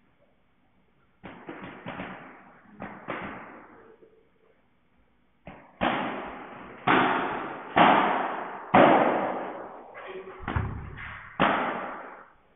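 Padel ball hits in a rally: a few sharp strikes and bounces, then a steady exchange of racket hits and bounces about once a second from midway, each hit echoing in the indoor hall.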